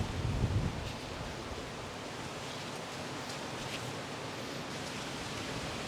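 Steady hiss with light rustling and a few faint soft clicks: the handling noise of hands working over the body during a massage.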